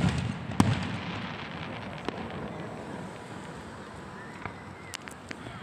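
Aerial fireworks exploding: a loud bang at the start and a second about half a second later, followed by a long crackling hiss that slowly fades, with a few scattered sharp cracks near the end.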